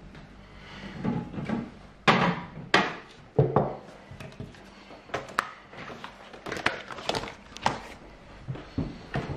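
A large silicone pastry mat being lifted off a wooden tabletop and folded up, with irregular knocks and thumps as it is handled, the loudest about two to three and a half seconds in and again around five seconds in.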